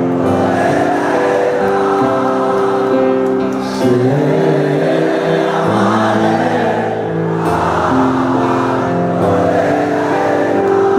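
Live band playing long held chords while many voices sing together, like a large concert crowd singing along.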